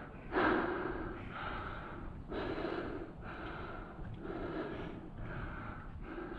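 A climber's heavy breathing close to the microphone, about one breath a second, from the effort of climbing.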